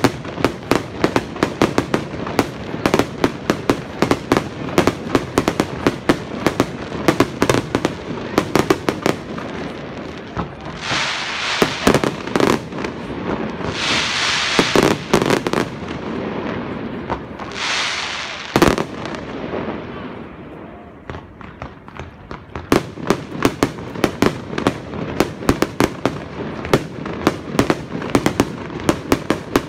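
Aerial fireworks display: rapid runs of shell bursts banging several times a second. The bangs break off midway for three stretches of hissing crackle and one single loud bang, ease into a short lull, then start up again in quick succession.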